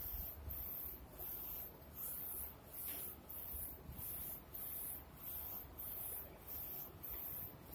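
UV flatbed printer's print-head carriage shuttling back and forth across the gantry while printing, a high hiss with a low rumble swelling and fading with each pass, roughly every two-thirds of a second.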